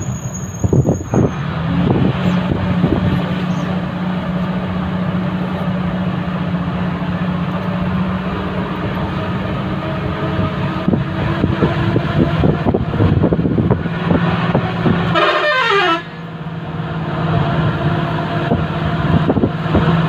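Vehicle engine running steadily with a low hum, heard from inside the moving vehicle. About fifteen seconds in, a high tone slides quickly down in pitch and the engine note drops off, then builds up again.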